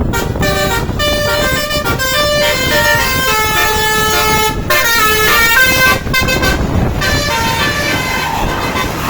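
A bus's Basuri 'telolet' multi-tone horn playing a quick tune of short stepped notes, several sounding together, over a low rumble of engine and traffic. The tune stops about seven and a half seconds in.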